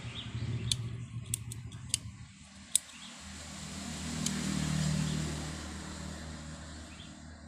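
Several small, sharp clicks of the angle grinder's plastic-and-metal power switch as it is handled and worked by hand, over a low background drone that swells and fades around the middle.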